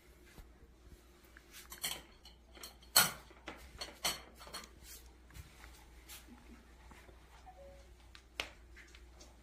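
Light clicks and taps of chopsticks being set down on plates and bowls of offering food, a handful of separate strikes with the sharpest about three seconds in.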